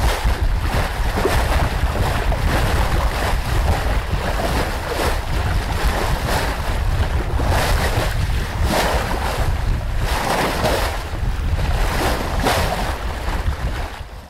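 Wind buffeting the microphone over waves washing and splashing at sea, with irregular surges of water noise every second or two.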